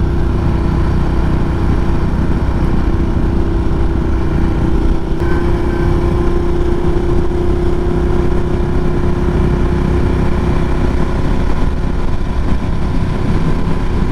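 Adventure motorcycle being ridden at a steady engine speed, its engine running evenly with no change in revs.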